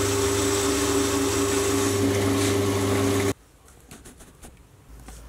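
Sieg C3 mini lathe running steadily while turning an aluminium pulley, a steady machine hum with a few fixed tones and a cutting hiss. It stops abruptly about three seconds in, leaving a few faint clicks and scrapes.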